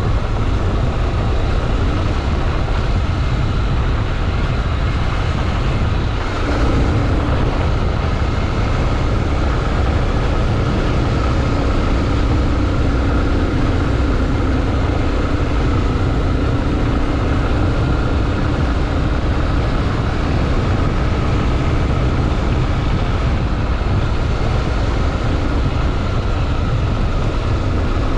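Honda XRE 300 Rally's single-cylinder engine running steadily, with a heavy low rumble throughout; a faint steady hum joins about six seconds in.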